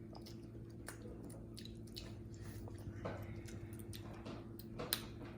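Wet chewing and squishing of spaghetti being eaten close to the microphone, with scattered small clicks over a faint steady hum.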